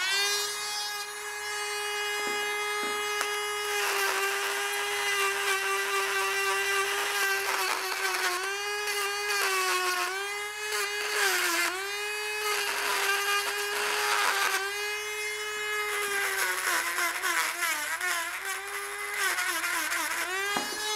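Handheld Dremel-type rotary tool running at a steady high whine, its burr grinding pitted, corroded aluminium out of a VW Golf Mk2 GTI cylinder head's coolant-connection face. The pitch sags and recovers again and again as the burr bites into the metal, mostly in the middle and again near the end.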